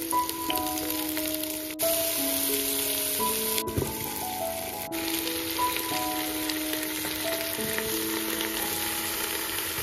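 Food frying in hot oil in a pan, a steady crackling sizzle, under background music of a simple melody of held notes.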